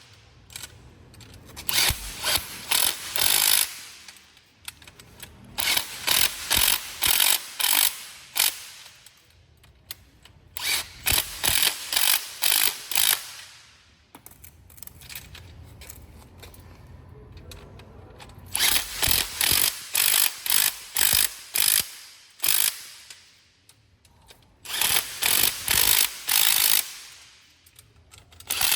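Makita DTW300 cordless impact wrench hammering in several runs of short, quick bursts, with quieter pauses between runs.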